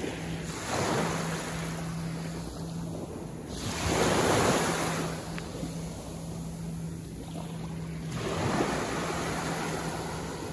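Small ocean waves breaking and washing up a sandy shore, three swells of surf, the loudest about four seconds in.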